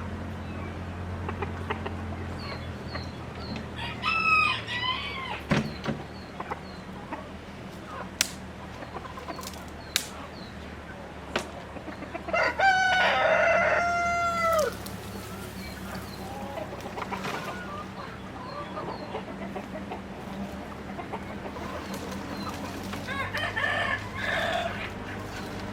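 Free-range chickens clucking, with a rooster crowing once, loud and about two seconds long, around the middle. Shorter calls come a few seconds in and near the end, with faint high chirps and a few sharp knocks between.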